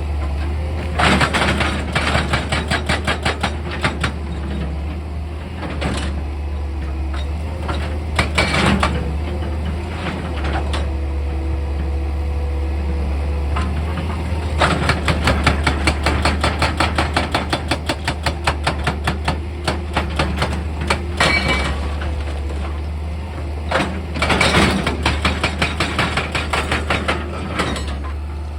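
Heavy machine engine running steadily with a low hum, broken by several bursts of rapid knocking, about seven or eight knocks a second, the longest lasting several seconds in the middle.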